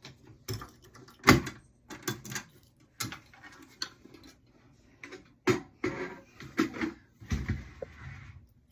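Small items and paper being handled while a parcel is packed: irregular knocks, clicks and rustles, the loudest just over a second in, with a longer rustle near the end.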